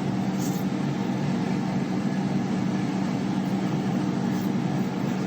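Steady low machine hum with a buzzing tone, unchanging throughout.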